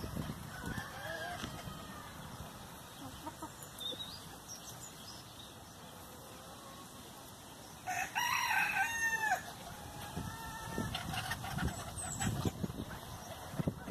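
A bantam rooster crows once, about eight seconds in, the loudest sound here. Softer clucking from the feeding flock comes before and after it.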